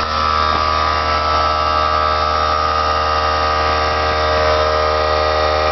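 Campbell Hausfeld oilless air compressor running steadily just after being switched on, its motor and pump holding one even pitch.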